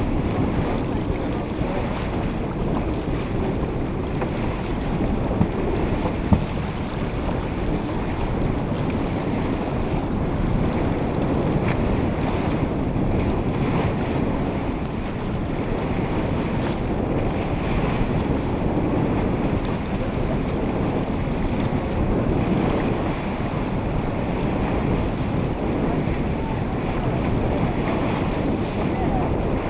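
Sailboat under way: wind buffeting the microphone over the steady rush and splash of water along the hull. Two brief knocks come about six seconds in.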